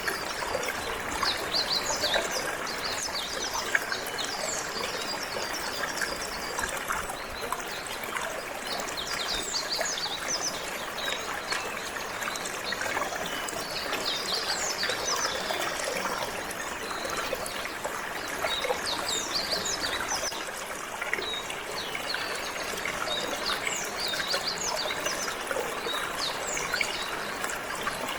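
Water flowing and trickling steadily, with canaries chirping and trilling over it in quick, high, repeated notes.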